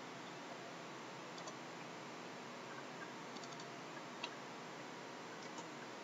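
A few faint computer mouse clicks spaced out over a steady hiss, the clearest about four seconds in.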